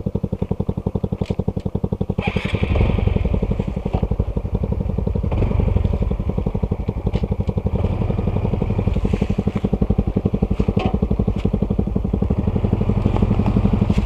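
Honda CT125's single-cylinder engine running under way, its firing pulses a steady rapid beat that grows louder about two seconds in as the throttle opens.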